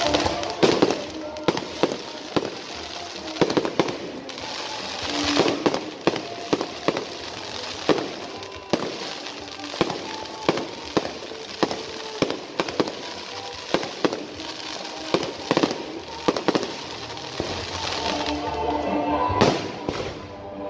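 Aerial fireworks bursting overhead in a rapid, irregular run of bangs, one after another, with a steady crackling haze between them.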